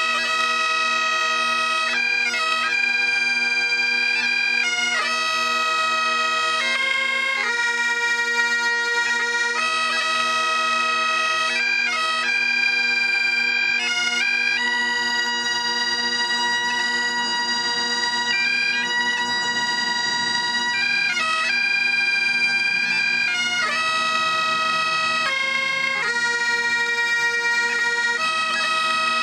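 Two sets of Great Highland bagpipes played together: a steady drone under a melody that steps from note to note without a break.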